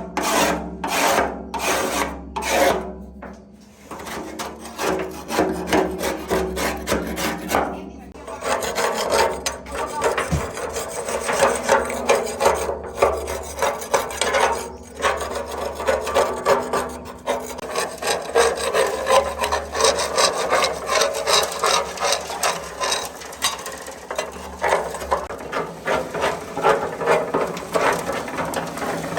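Rhythmic rasping strokes of hand scraping on a workpiece, about two strokes a second at first, then faster and denser from about eight seconds in.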